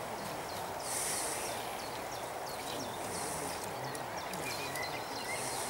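Fast river water rushing steadily, with short high hissing bursts about every two seconds and faint bird chirps.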